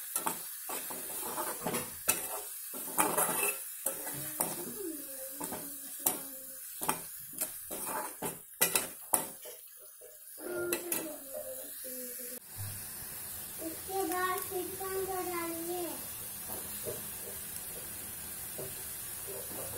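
Metal spoon clinking and scraping against an aluminium kadai while stirring a thick tomato masala, as a string of quick sharp knocks. Most of the knocks fall in the first two-thirds, and it is quieter and steadier after that.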